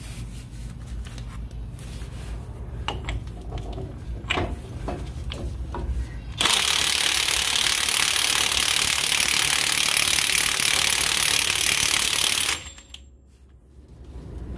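A few light clicks, then a cordless DeWalt impact wrench hammers on a Dana 44 pinion nut for about six seconds and cuts off sharply. It is running the nut down against the crush sleeve to take out the pinion endplay.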